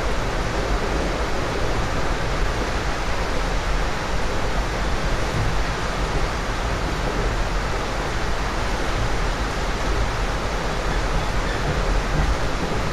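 Steady rushing noise of an Amtrak Superliner passenger car running at speed, heard from inside the car: wheels on the rails and the rush of the moving train.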